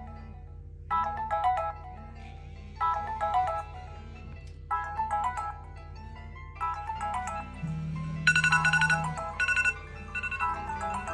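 Mobile phone ringtone: a short electronic melody repeating about every two seconds over a steady low drone, with more tones joining in about seven seconds in and a brighter, higher melody soon after.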